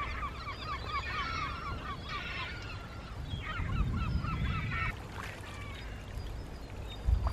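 A flock of birds calling in a fast run of short, repeated honking calls. The calls break off about two seconds in, start again a second later and die away around five seconds, over a low rumbling noise.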